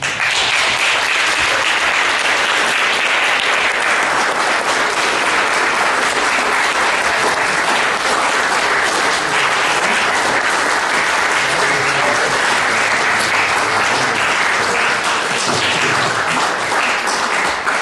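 Audience applauding, breaking out all at once and holding at a steady, dense level.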